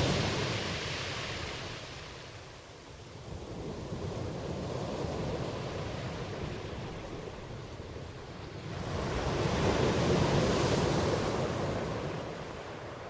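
Rain with gusting wind: a rushing noise that swells and fades, loudest about ten seconds in.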